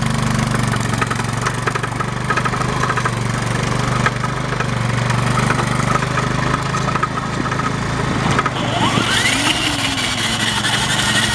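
A Yamaha Moto4 ATV engine runs steadily as it tows a second, broken 1990 Moto4. About eight and a half seconds in, a high whine rises in pitch and then holds. This is the noise the towed Moto4 makes when its clutch is let out in gear, the fault its owner is trying to diagnose.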